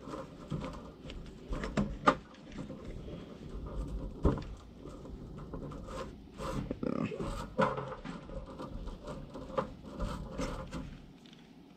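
Handling noise of a dust bag being worked onto the ball-bearing dust port of a cordless DeWalt sander: irregular clicks, knocks and rustling as it is pushed and fitted on, a sharp knock about four seconds in.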